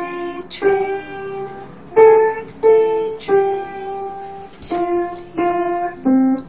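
Upright acoustic piano played by a young beginner, picking out a simple melody slowly, one single note at a time.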